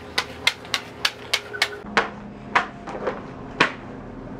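Swim flippers slapping on a hard floor with each walking step, about three and a half slaps a second, slowing to a few spaced slaps after the halfway point as the walker comes to a stop. A faint steady hum runs underneath.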